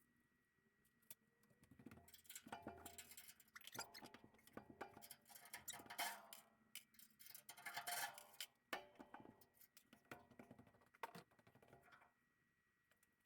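Faint, irregular clicking and rattling, most of it between about two and twelve seconds in, over a faint steady high-pitched hum.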